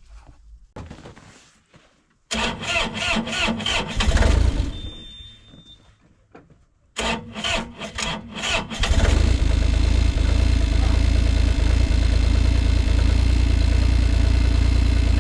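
Bobcat excavator's diesel engine being cranked on a cold start after glow-plug preheating. A first crank of about two seconds does not catch and there is a short high beep; a second crank catches about nine seconds in, and the engine settles into a steady idle.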